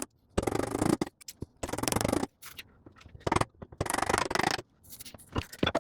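Bench chisel paring and scooping waste from a curved edge in poplar: about five separate scraping strokes, each under a second, as the bulk of the arc's material is taken out.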